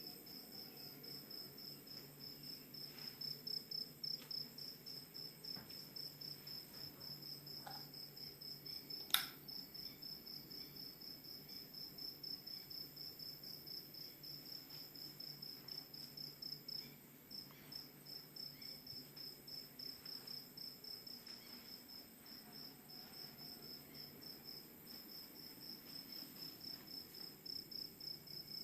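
A cricket chirping at night in a steady, evenly pulsed high trill. A single sharp click sounds about nine seconds in.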